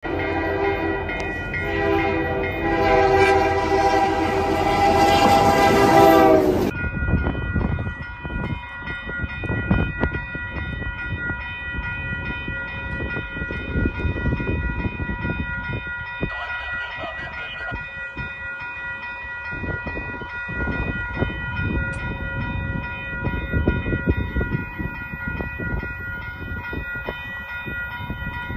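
Diesel locomotive air horn sounding a loud multi-note chord at a grade crossing, with a short break about a second in; it cuts off abruptly after about seven seconds. Then steady high tones sound over a low rumble as a train approaches from far down the line.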